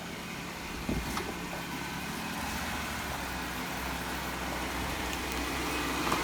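Vehicle engine running steadily with a low hum, with two short knocks about a second in.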